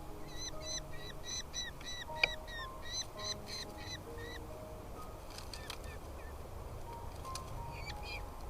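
Background music with sustained notes, over a rapid series of high, repeated bird calls, about three or four a second for the first half, with a few more calls near the end. A single sharp click about two seconds in.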